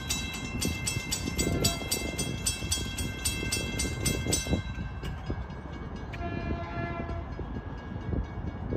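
Railroad crossing warning bell ringing at about four strikes a second over a low rumble, then cutting off about four and a half seconds in while the gate arm moves, during a crossing malfunction. A faint horn-like tone sounds briefly about six seconds in.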